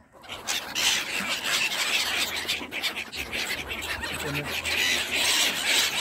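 A flock of small gulls calling, many overlapping cries at once, as they crowd in to be fed. The calling starts abruptly and keeps up without a break.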